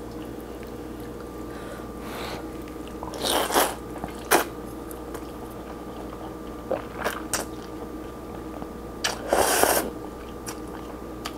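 A person slurping rice vermicelli noodles from a bowl of curry noodle soup and chewing them. There are several short slurps, the longest about three and a half seconds in and again near the end.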